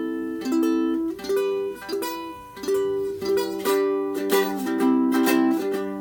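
Enya soprano ukulele strung with Fremont Blackline low-G strings, strummed in a steady rhythm of chords that change every second or so; the low G string sounds under the chords.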